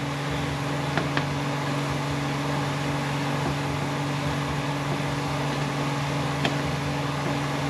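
Steady machine hum in the shop, with a few faint clicks as a reamer is turned slowly by hand with a speed handle in a 6T70 valve body's accumulator bore.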